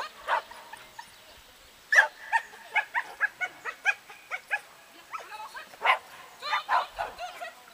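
A dog barking in a quick run of short, high yips, about three a second, in two bursts with a short break between them.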